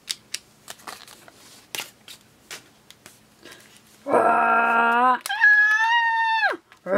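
Small plastic toys clicking and knocking as they are handled on a tabletop. About four seconds in, a person's voice cries out in a frightened wail: a low cry jumps up to a high-pitched scream that falls away and breaks off, then starts again near the end.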